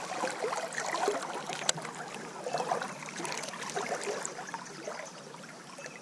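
River water rippling and trickling around a wader standing in the current, with one sharp click about a second and a half in.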